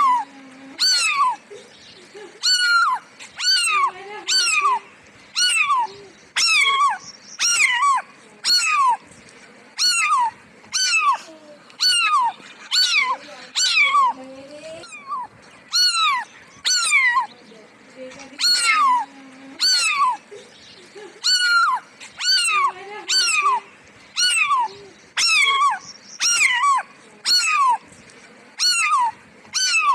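A cat meowing over and over: short, high-pitched meows, each falling in pitch, about one every three-quarters of a second with a few short pauses.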